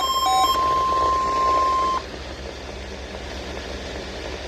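NOAA Weather Radio warning alarm: a steady single 1050 Hz tone that cuts off sharply about two seconds in, leaving the receiver's low hiss and hum.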